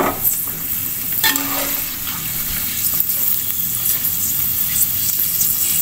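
Food deep-frying in a pot of hot oil on a gas stove at medium flame, a steady sizzle.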